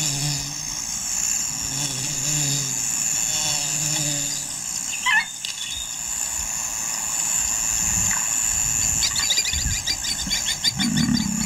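Wild bush ambience with a steady insect chorus. A low hum runs for the first few seconds, a single short chirp comes about five seconds in, and rapid ticking calls start near the end.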